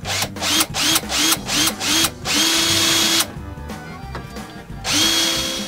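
Cordless drill with a countersink bit countersinking screw holes in a plywood plate. The trigger is blipped about seven times in quick succession, then held for two longer runs; each time the motor whine rises as it comes up to speed and then holds steady.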